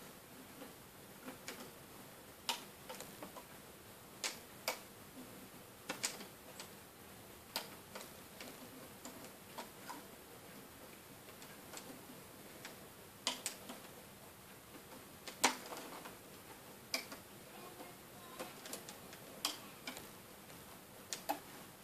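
Faint, irregular small clicks and ticks as rubber bands are looped with a plastic hook tool on the pegs of a plastic Wonder Loom, about one a second and sometimes two close together.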